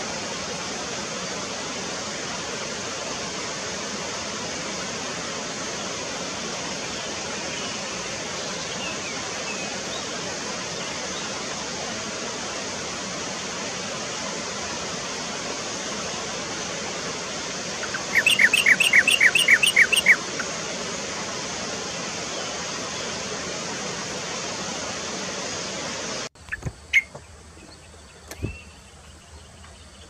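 Yellow-vented bulbul giving a rapid run of about nine loud chirping notes, lasting about two seconds, over a steady rushing hiss. The hiss cuts off abruptly near the end, leaving a quieter background with a few faint clicks and a short call.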